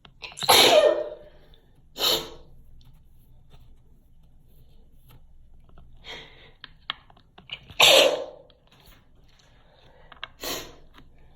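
A person sneezing several times: two loud sneezes, one about half a second in and one about eight seconds in, with shorter sharp sneezes or sniffs between them.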